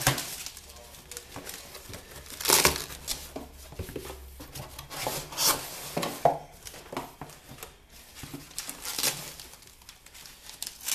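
Cardboard shipping box and white foam wrapping being handled by hand: irregular rustling and crinkling, with several louder crinkles and some tearing of cardboard.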